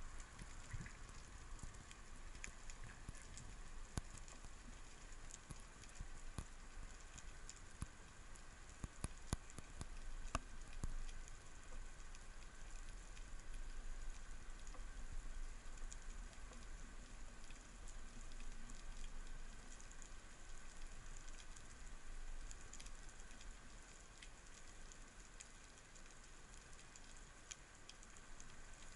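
Faint underwater crackling, a dense steady patter of tiny clicks from the seabed, with a low rumble beneath it. A few louder clicks stand out about 4 seconds in and again around 9 to 11 seconds in.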